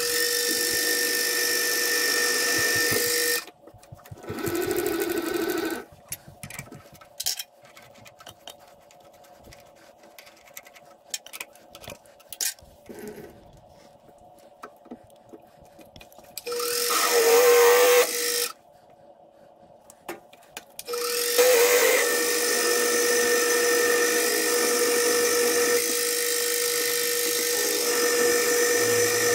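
Benchtop milling machine's motor running with a steady whine while a long drill bit bores balancing holes into a steel two-stroke crankshaft flywheel. The machine stops and starts several times, with a long quieter stretch of small clicks in the middle, then runs steadily through the last third.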